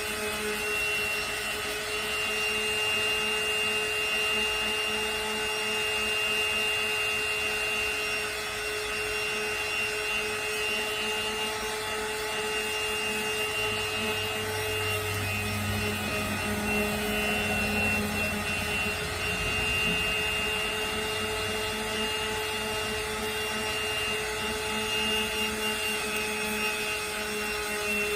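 Electric power sander running steadily with 80-grit abrasive on wood: a constant-pitched motor whine over the rasp of the paper, with a deeper rumble for a few seconds around the middle.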